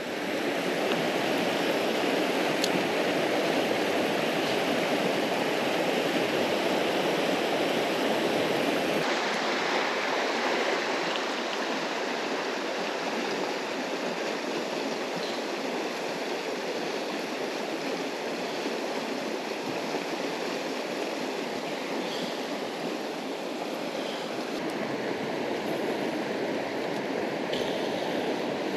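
Steady rushing of a flowing river, a dense even noise of moving water; its tone shifts abruptly about nine seconds in.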